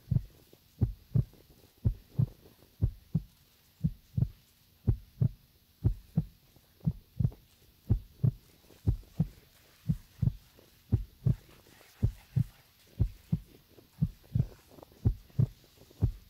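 Footsteps on dry earth, heard as soft, short, low thuds about twice a second in a slightly uneven walking rhythm.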